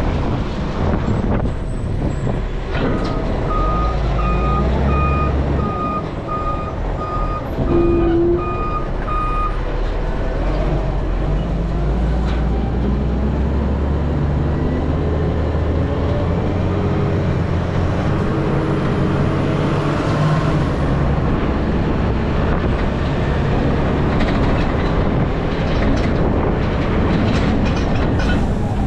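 Garbage truck's diesel engine running with a steady low rumble, its reversing alarm beeping about once every 0.7 seconds for around six seconds early on. A short, loud low tone sounds about eight seconds in.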